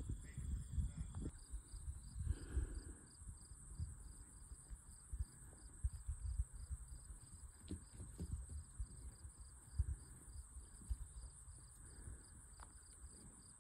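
Faint outdoor ambience: insects chirping steadily, about three chirps a second, over a high steady hiss, with irregular low rumbles underneath.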